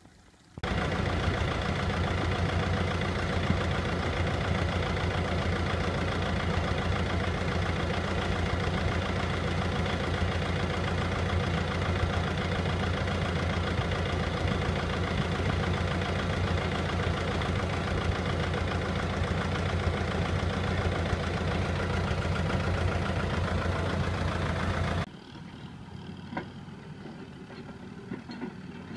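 Tractor engine running steadily and loud, heard from on board the tractor, with a strong low hum; it starts abruptly about half a second in and cuts off near the end, where a quieter tractor engine takes over.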